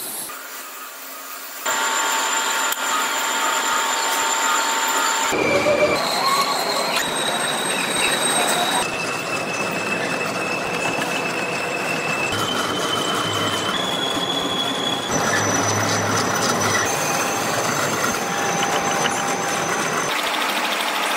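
Steel being machined as gear teeth are cut into a large blank on a lathe: a steady high whine of the cutting tool over a grinding metal-cutting noise. The whine changes pitch every few seconds.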